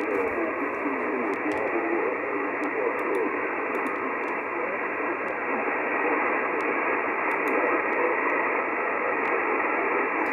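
Icom IC-9700 receiving in upper sideband on the RS-44 satellite's 70 cm downlink: a steady receiver hiss with faint wavering weak signals buried in it, and a few light clicks.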